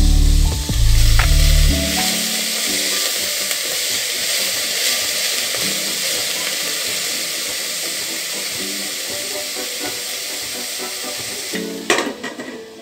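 Shredded cabbage and green peas sizzling in hot oil in a steel pot as they are stirred, over background music that is loud for the first two seconds and faint after. About twelve seconds in, a few clinks as a glass lid is set on the pot.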